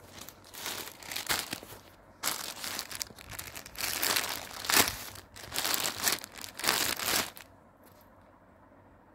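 Clear plastic wrapping crinkling as a packed saree is handled, in uneven bursts that stop near the end.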